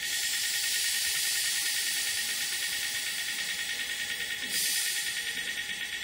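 Pressurised oxygen-free nitrogen hissing out through a refrigeration manifold gauge set and its service hose, starting suddenly, with a brief louder surge a little after four seconds in: the 5-bar test pressure being vented from the system before evacuation.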